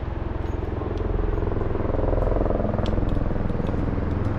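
A boat's outboard motor running steadily, its engine note rising a little about two seconds in.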